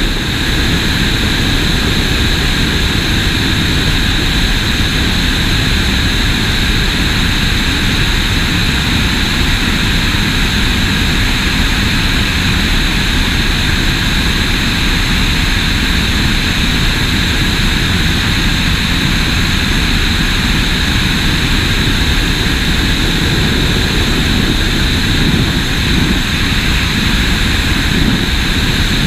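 Single-engine float plane in flight, heard from a camera mounted outside on its fuselage: a steady engine and propeller drone mixed with heavy wind rush on the microphone, unchanging throughout.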